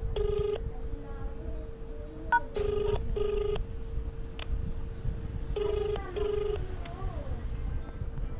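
Telephone ringback tone over a phone's loudspeaker: a double 'ring-ring' repeating about every three seconds while the call waits to be answered. A short keypad beep sounds a little over two seconds in, the # key being pressed.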